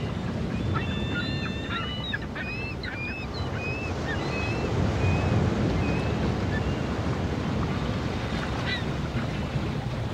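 Wind on the microphone with a steady low rumble, over which birds give a flurry of short, high, chirping calls through the first half, with a few more near the end.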